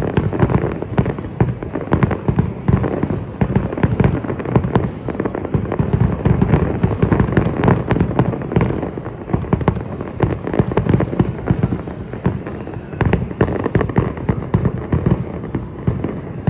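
Fireworks display with a dense, continuous barrage of rapid bangs and crackles.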